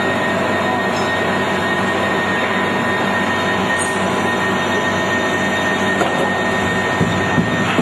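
Steady industrial machinery running, a continuous loud hum with several fixed whining tones and no pauses.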